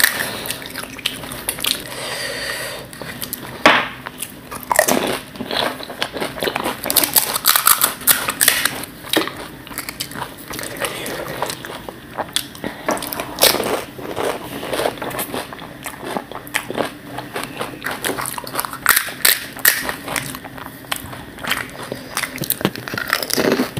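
Close-miked crunching and chewing of fuchka (pani puri): crisp hollow fried puri shells, dipped in mint water, cracking between the teeth in many quick sharp crunches.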